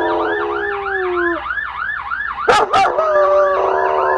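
German shepherd howling along to a siren that rises and falls about four times a second. The howl breaks off about a second and a half in and starts again about three seconds in. Between them come two sharp knocks, the loudest sounds.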